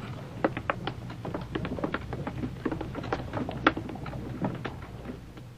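Boot footsteps on wooden boards: several people walking and climbing steps, a scatter of irregular knocks and taps several times a second over a faint low hum.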